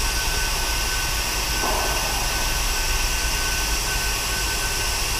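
Steady background hum and hiss of a large workshop, with a low drone and a thin, constant high whine.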